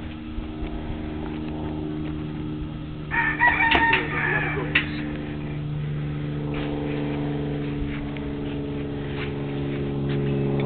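A rooster crows once, starting about three seconds in and lasting about a second and a half, over a steady low hum.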